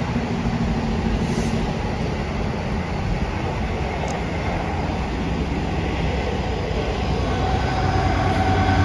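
Class 66 diesel freight locomotive approaching with a steady low rumble. Near the end it grows louder, and the locomotive's engine drone comes through as a steady hum with a higher tone above it.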